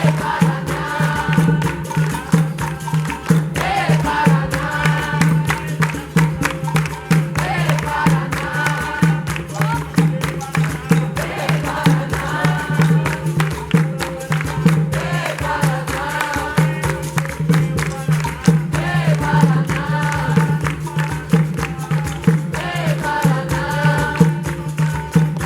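Capoeira music: group singing in repeated phrases over steady percussion with a tambourine-like jingle.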